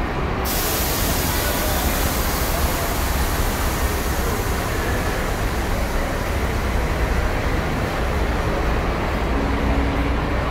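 Bus engines running with a steady low rumble. A hiss comes in suddenly about half a second in and slowly fades.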